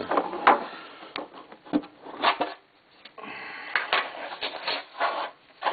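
Plastic packaging inside a trading-card box crinkling and rustling as it is pulled at, with scattered sharp clicks and taps and a brief pause about two and a half seconds in.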